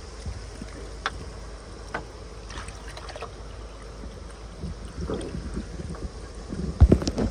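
Wind rumbling on the microphone, with a few scattered small knocks and one loud thump near the end.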